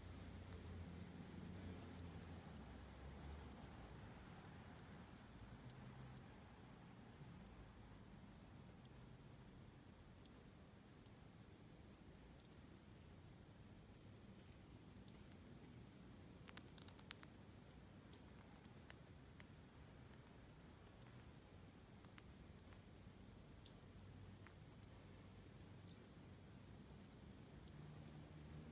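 Chipmunk repeating its high, sharp chip call: short chirps, several in quick succession at first, then about one a second at irregular intervals.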